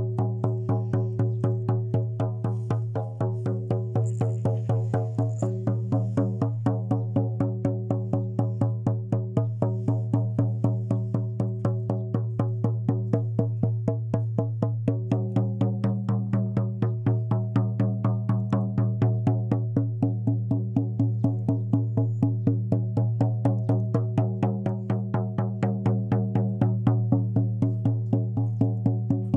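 Steady percussive music: an even drumbeat of about four strokes a second over a sustained low ringing tone.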